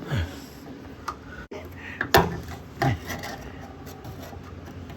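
A few separate knocks and clinks of metal parts being handled, the loudest about two seconds in, with light rubbing between them.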